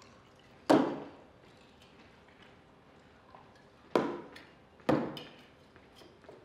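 Three sharp knocks of things set down hard on a table, each followed by a short echo: one about a second in, then two close together around four and five seconds in.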